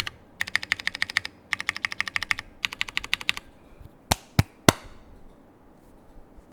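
Synovia custom mechanical keyboard with stock Cherry MX2A Brown tactile switches, aluminium plate and GMK keycaps being typed on in three quick runs of rapid keystrokes. About four seconds in come three louder single key strokes, then typing stops.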